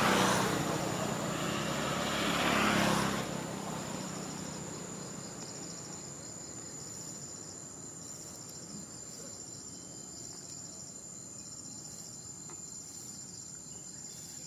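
Insects chirring: a steady high-pitched tone with a rapid pulsing just below it. During the first three seconds a louder rushing noise swells and then fades away.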